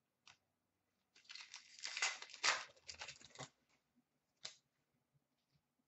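Faint rustling and sliding of trading cards handled by hand for about two seconds, then a single light tap a little past four seconds in.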